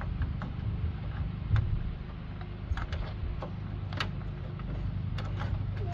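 Scattered sharp clicks and light taps of hard plastic being handled as a replacement amber grille marker light is worked into its mount, over a steady low hum.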